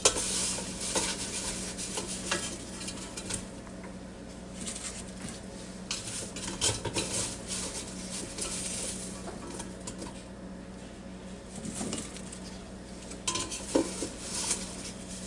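A scoop scraping and clinking in the Ninja Foodi Deluxe's cooking basket as roasted potatoes and carrots are dished out, in irregular bursts, over a steady low hum.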